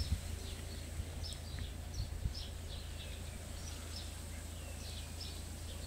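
Small birds chirping, short high notes repeating throughout, over a steady low rumble. A few faint knocks come in the first couple of seconds.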